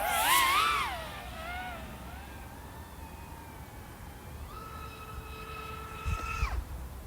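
iFlight AOS 3.5 V5 FPV quad's XING 1504 3100KV motors and 3.5-inch props whining as it flies past at speed: the loud pitch wavers up and down and fades away within about two seconds. About four and a half seconds in, a steadier, fainter whine comes back and cuts off after about two seconds.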